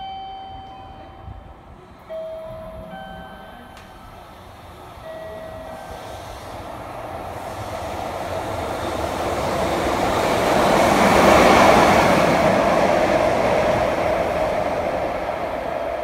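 A locomotive passes through the station without stopping. Its rumble and wheel noise build to a peak about eleven seconds in, then fade as it goes. In the first six seconds there are a few short, steady electronic tones at differing pitches.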